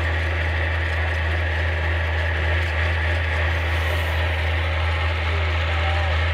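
A heavy engine running steadily, a deep even hum with no changes in speed.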